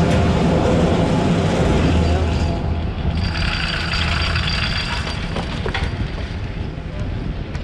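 Chairlift terminal machinery humming steadily, fading as the chair rides out of the station onto the lift line. A hissing rush starts about three seconds in and lasts about two seconds.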